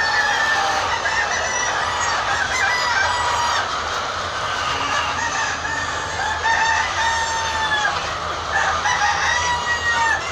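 A large flock of laying hens calling and clucking, many overlapping drawn-out calls at once.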